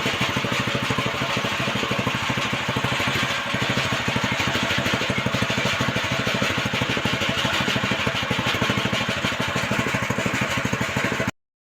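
Rice thresher's small engine running steadily with a fast, even beat, with a rushing noise over it; it cuts off suddenly near the end.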